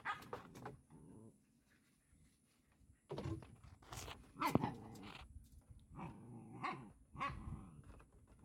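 Goat kids' hooves knocking on a floor of wooden poles, with short animal calls from about three seconds in.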